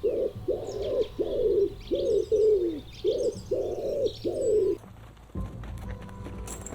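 Pigeon cooing: a quick run of about nine low, arching coos, with faint small-bird chirps behind. The coos stop about five seconds in and a different clattering sound follows.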